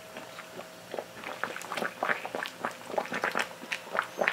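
Coconut milk heating in a wok around tilapia and vegetables, with irregular small pops and bubbling that grow more frequent after about a second, over a faint steady hum.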